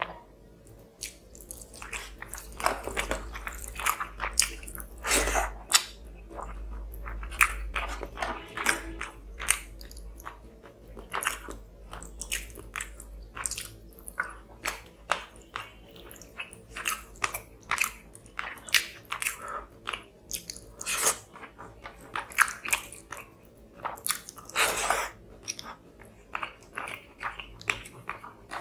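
Close-miked mouth sounds of a person eating fish curry and rice by hand: wet chewing with many quick, irregular clicks and smacks.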